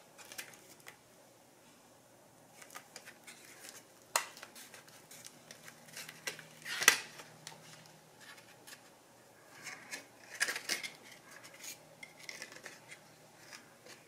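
Clear plastic clamshell blister pack of an M.2 SSD being handled, flexed open and pressed shut: scattered plastic clicks and crinkles, the sharpest snap about seven seconds in.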